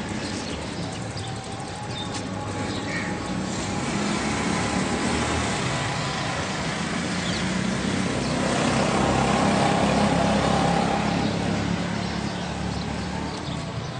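A motor vehicle running past, its sound building to a peak about ten seconds in and then fading.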